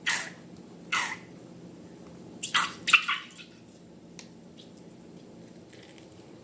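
Slime plopping and squelching, four or five wet plops in the first three seconds, each sliding down in pitch. Then only a few faint ticks over a low steady hum.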